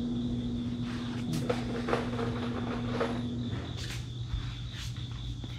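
Cordless impact driver's motor running in a steady hum while driving screws into the 2x4 legs, stopping about three and a half seconds in. A few light knocks come after.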